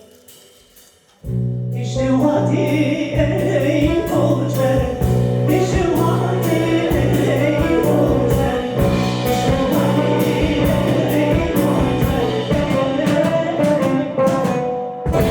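Live world-music band playing with a singing voice. After a quiet, fading first second, the full band comes in loudly with drums beating steadily under sustained low notes and the sung melody, then breaks off briefly near the end.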